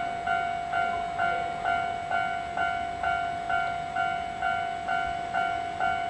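Japanese railway level-crossing warning bell ringing its repeated 'kan-kan', a bit over two strikes a second at an even pace.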